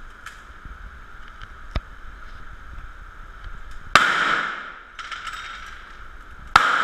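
Two gunshots on an indoor shooting range, about two and a half seconds apart, each a sharp crack followed by a short echo in the range, with a light click about two seconds in.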